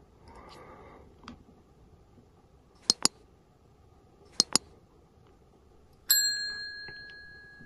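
Subscribe-button overlay sound effects: two quick mouse-click double clicks, then a bright bell ding that rings and fades away. A soft rub of the phone being handled comes just before the clicks.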